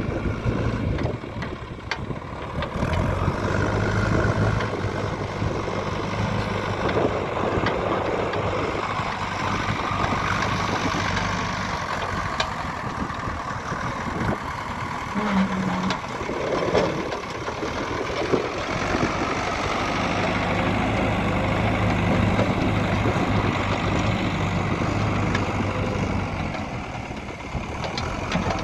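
Diesel engines of a JCB 3DX backhoe loader and a tractor running at work, with a low engine hum that fades out in the middle and comes back later.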